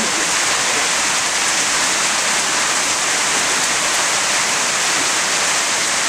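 Steady rain falling, an even hiss with no break.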